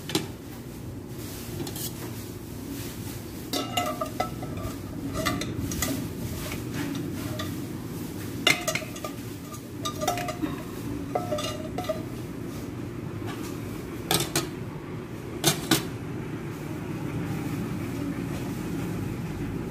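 Metal utensil clinking and scraping against the wire rack and glass bowl of a countertop convection (turbo) oven as a roast chicken is turned, about ten sharp clinks scattered through the middle, over a steady low hum.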